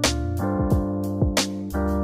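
Background music: held keyboard chords over a drum beat with deep kick drums and sharp snare hits.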